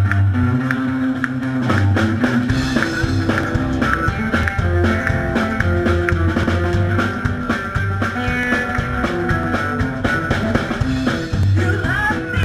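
Live rockabilly band playing: upright double bass, electric guitar and drum kit in an instrumental passage, with a woman's singing voice coming in near the end.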